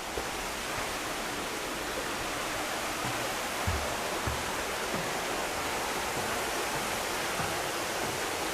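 Steady rushing of running water, an even hiss. There are a few soft low thumps a little before the middle.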